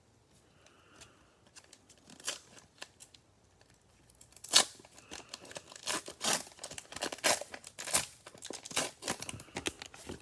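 Cellophane wrapper of a trading-card pack being torn open and crinkled: a dense run of irregular sharp crackles, loudest about four and a half and eight seconds in.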